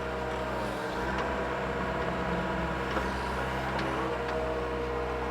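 Mini excavator's diesel engine running steadily under hydraulic load. Its note sags about half a second in and comes back up near four seconds, with a few faint knocks.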